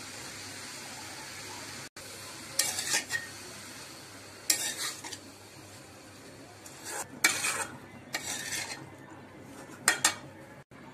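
Spatula stirring and scraping shredded cabbage, tomato and capsicum around a metal wok in about five short bursts, over a faint steady sizzle of the vegetables frying.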